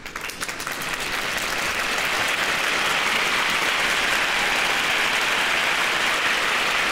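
Crowd applause: a few separate claps at first, swelling within a second or so into steady clapping from many hands.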